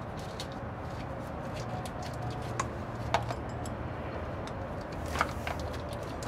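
A few light metallic clicks and clinks as positive battery cable terminals are handled and lifted off the battery posts, over a steady low background hum.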